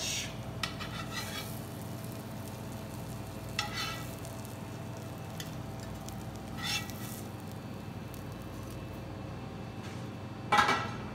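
Metal spatula scraping and clinking against the frying pan and plate as potato pancakes are lifted out, over a steady sizzle from the buttered pan. There are a few short scrapes, the loudest near the end.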